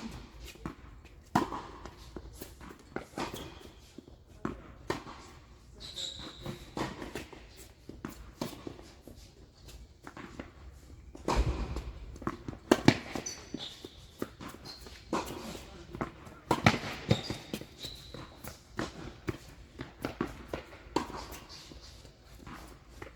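Tennis being played: irregular thuds and pops of the ball struck and bouncing, with footsteps and a few short high squeaks.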